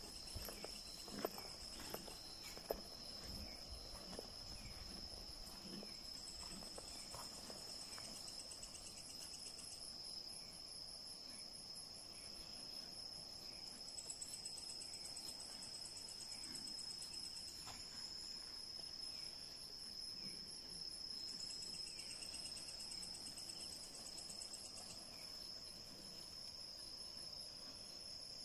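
Night insects calling: a steady high-pitched cricket-like trill holds throughout, while a second, pulsing insect call comes and goes in three bouts of a few seconds each. A few footfalls on the forest floor sound in the first few seconds.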